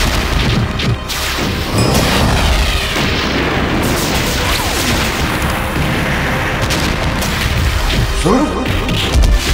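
Dramatic soundtrack of explosion-like booms and a dense, continuous rushing noise, mixed with background music.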